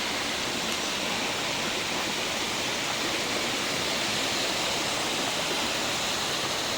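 Steady rushing of a rainforest waterfall and creek, an even hiss of falling water with no breaks.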